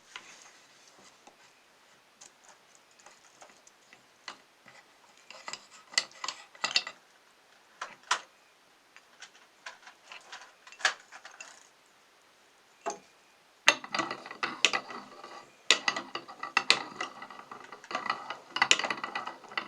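Meat grinder working a tomato through, with scattered mechanical clicks and wet crackles that turn into a dense, continuous crackling about two-thirds of the way in.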